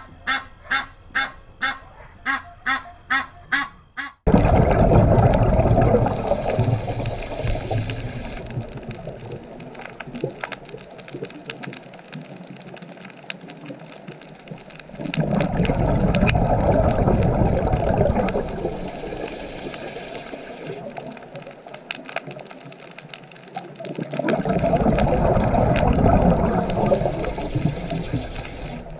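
A mallard quacking in a quick, even series, about two quacks a second, cut off about four seconds in. Then an underwater rushing, bubbling water noise follows; it swells loudly three times, about ten seconds apart.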